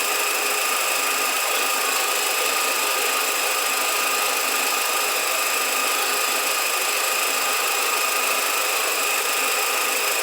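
Volkswagen SpaceFox 1.6 engine running, with a steady cricket-like, metal-catching noise from the accessory belt drive; the noise comes from the power steering pump, which has play in its shaft.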